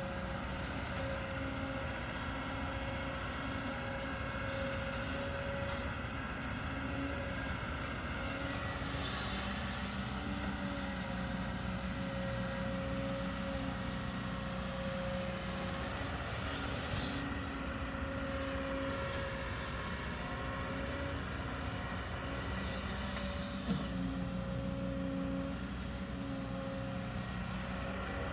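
Kobelco hydraulic excavator's diesel engine running steadily under working load, with one sharp knock near the end.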